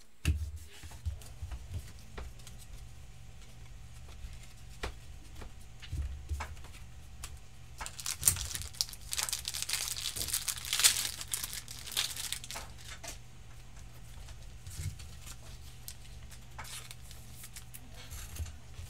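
Trading cards being handled and slid into plastic sleeves: scattered light taps and rustles, with a stretch of louder plastic crinkling in the middle.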